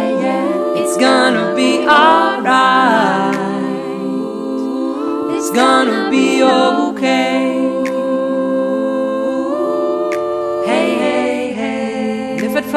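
Background music of layered a cappella voices singing and humming wordlessly over long held notes.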